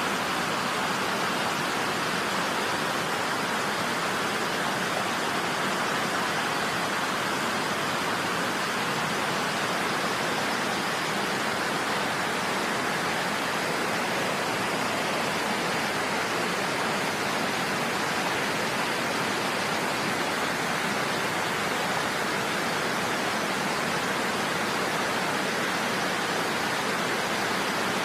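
A steady, even rushing noise that holds the same level throughout, with no distinct events.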